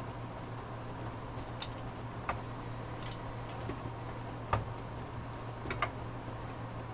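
Irregular small clicks and ticks of a Phillips screwdriver and a spring-loaded cooler screw against the metal of an Intel stock CPU cooler as the screw is worked into place, the loudest about four and a half seconds in. A steady low hum runs underneath.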